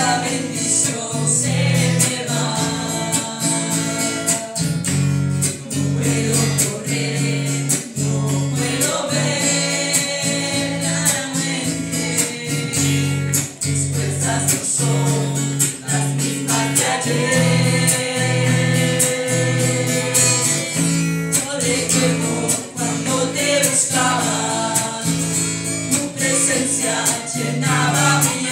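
A man and a woman singing a Christian worship song into microphones, amplified, over a steadily pulsing instrumental accompaniment.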